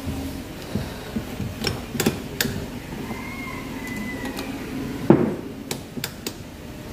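Scattered metal clicks and knocks of gearbox shafts and gears being fitted into a Bajaj Pulsar 220 crankcase, with the loudest knock about five seconds in.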